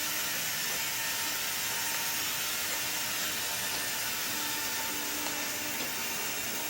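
Toy Disney Mark VII monorail playset train running steadily along its track, its small electric motor, driven through a Team Losi speed controller, giving a faint even hum.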